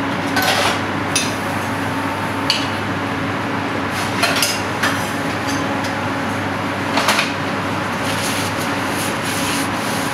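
Metal plating tweezers clicking a few times against a stainless-steel tray and plate while herb leaves are picked up and placed, over a steady ventilation hum.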